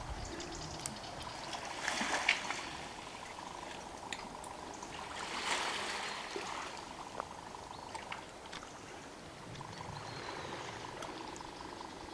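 Small sea waves lapping and sloshing against shoreline rocks, with two louder washes about two and five and a half seconds in.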